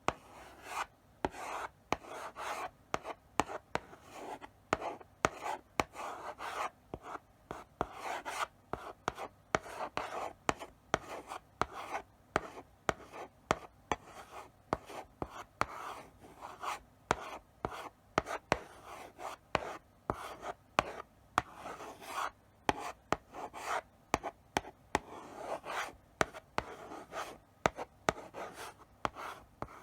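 Chalk writing slowly on a blackboard: a steady run of short taps and scratchy strokes, several a second, as characters are written out.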